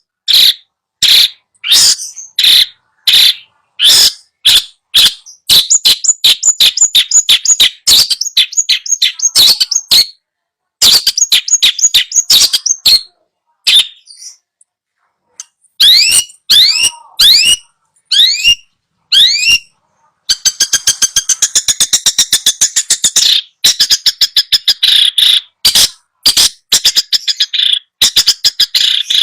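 Bird-song master recording of the kind played to coax a silent long-tailed shrike into singing. It holds loud, harsh repeated calls and fast chattering runs. Near the middle come a few rising sweeping notes and a rapid trill, with brief pauses between phrases.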